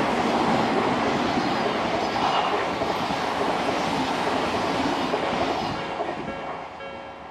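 An Odakyu Line electric train passing over a level crossing, its noise dying away about six seconds in. As it fades, the crossing's warning bell is heard ringing in an even, repeating ding.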